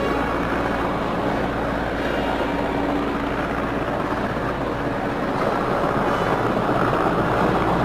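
Helicopter flying low overhead: a steady rotor and engine noise that grows slightly louder near the end.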